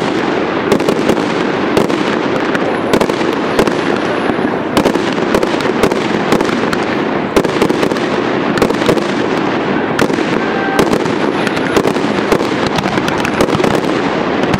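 Aerial fireworks display: shells bursting and crackling in quick succession, a dense run of sharp cracks and bangs over a steady rumble.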